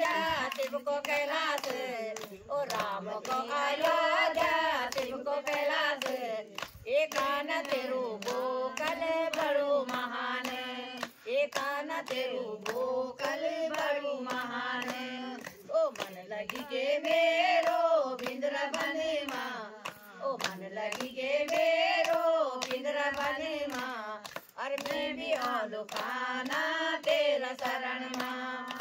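A group of women singing a Hindi devotional bhajan together, a melody that rises and falls in repeated phrases, with steady hand-clapping keeping time at about two claps a second.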